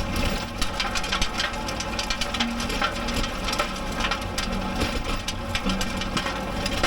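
Kubota B7500 compact diesel tractor running steadily while driving a rotary tiller through garden soil, with a constant crackle of clods and debris under the tines over the engine.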